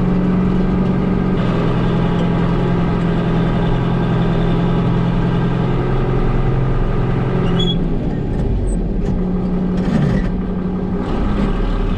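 Engine of harvest machinery running steadily under load. About eight seconds in, the higher noise thins and the engine note shifts.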